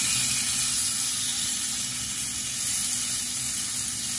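Strips of raw beef sizzling in a hot oiled frying pan, a steady hiss that starts as the meat hits the pan.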